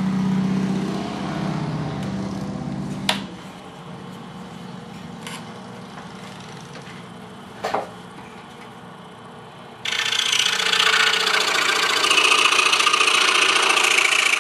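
DeWalt scroll saw running, with a few clicks, then about ten seconds in its blade starts cutting a stack of three glued boards: a sudden loud, steady rasp. The blade is getting worn out.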